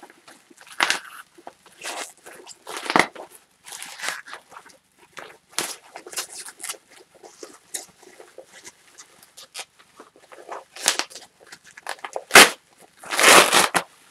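Thick bubble wrap being cut open with a razor knife and pulled apart by hand: irregular crinkling and tearing of plastic, with a sharp snap about twelve seconds in and a longer, louder rustle just after.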